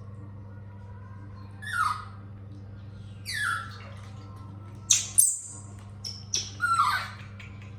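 Baby monkey giving high squealing calls that fall in pitch, several in a row, with two sharp clicks about five seconds in over a steady low hum.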